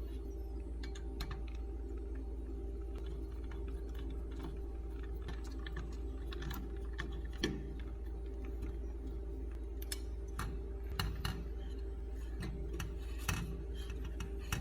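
Scattered light clicks and taps of small hard parts being handled, irregular, with a few sharper ones, over a steady electrical hum.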